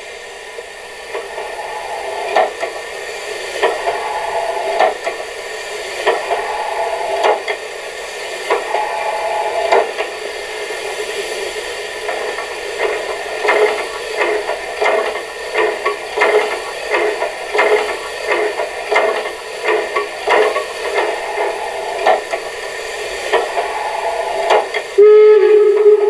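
Sound module of a KISS large-scale model of the Harz narrow-gauge Br 99.23 2-10-2 tank locomotive, playing recorded steam-locomotive sounds through its small loudspeaker, with no bass: steam chuffs about a second apart that quicken to about two a second as the engine speeds up. A short whistle blast comes near the end.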